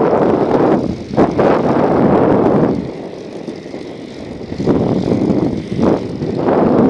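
Wind rushing over a phone's microphone while cycling along a road: a loud, rough rumble that eases for about two seconds midway and then returns.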